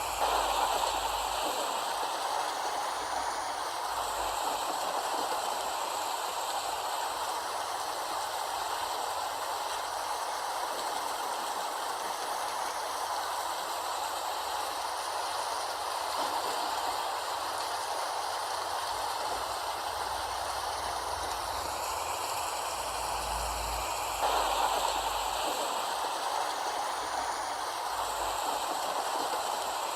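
Steady rain falling, an even hiss, briefly heavier just after the start and again about three-quarters of the way through.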